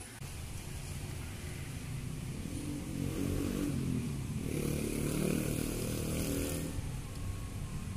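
A motor vehicle engine running close by, growing louder about three seconds in and easing off near the end, with a rushing hiss at its loudest.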